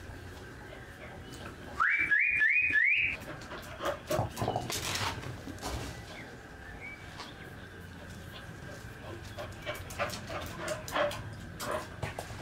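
A dog gives four quick, high, rising yelps in a row while chasing a chicken. Scattered light clicks and scuffles follow.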